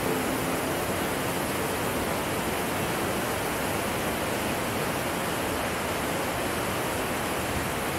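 Steady, even rush of a mountain waterfall and its stream cascading over boulders.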